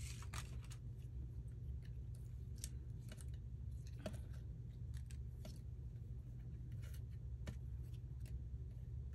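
Light, scattered clicks, taps and scratchy rustles of paper pieces and small craft tools being handled on a work table, over a steady low hum.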